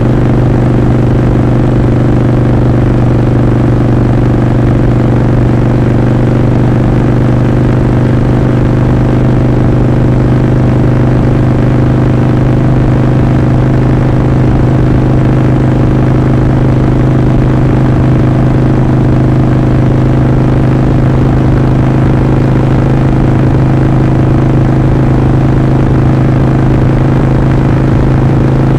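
Harley-Davidson Sportster Forty-Eight's air-cooled 1200 cc V-twin engine and exhaust running at a steady, even pitch, creeping slightly higher near the end.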